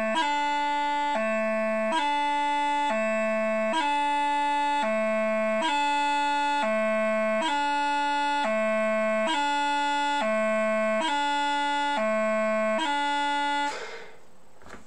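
Bagpipe practice chanter playing a slow, even two-note exercise, low A and D alternating about once a second, with a quick grace-note blip at each change of note. It stops near the end.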